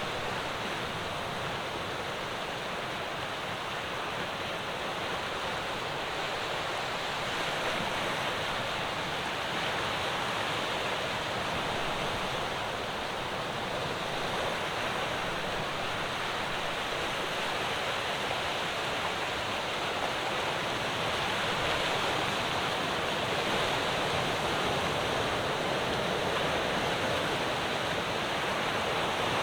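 Ocean waves breaking and washing on the shore, a continuous dense rush that swells slightly about a third of the way in and again in the last third.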